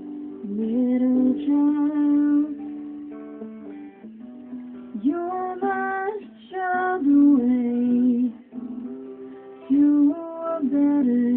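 Electric and acoustic guitars playing together live, with no words: a melodic lead line over the chords, several of its notes sliding up in pitch.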